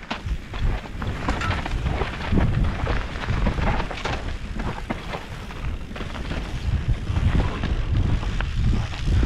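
Wind buffeting the microphone of a helmet camera on a mountain bike descending a rough dirt singletrack, with the tyres rolling over dirt and roots and the bike rattling and clicking over bumps.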